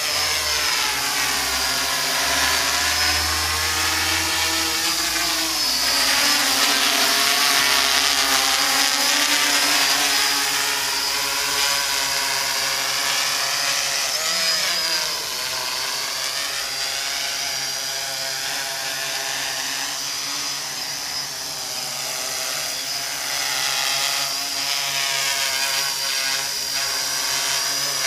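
MikroKopter MK02 quadrocopter's four electric motors and propellers whining as it hovers, the pitch wavering up and down as the motor speeds are constantly adjusted. A little quieter through the middle stretch, then louder again near the end.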